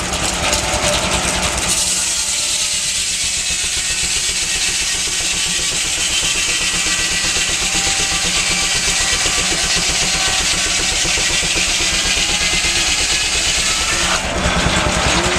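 A sawmill saw cutting through a log: a loud, steady high-pitched cut over a running engine's low beat. The cut takes hold about two seconds in and breaks off sharply about a second before the end.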